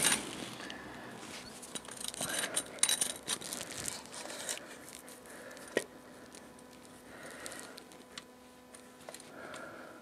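A scissor jack and a wooden block being handled and set in place under the motorcycle: scattered scrapes, rustles and clicks, busiest in the first few seconds, with one sharp click a little past halfway. After that, fainter light scraping as the jack's screw is turned by hand.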